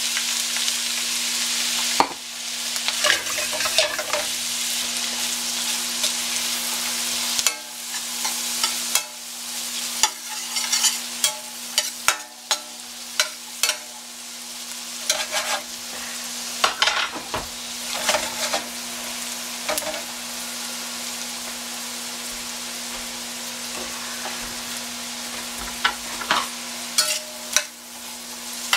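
Diced onions sizzling in melted butter in a stainless steel skillet, stirred with a fork that scrapes and clicks against the pan. The sizzle is loudest just after the onions go in and settles lower as they cook.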